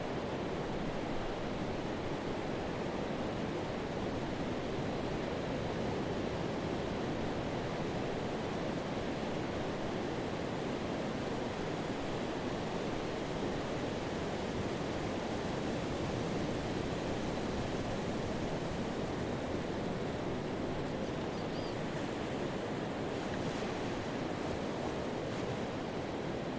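Pacific Ocean surf breaking on a sandy beach, with foam washing along the shoreline: a steady, even rush of waves.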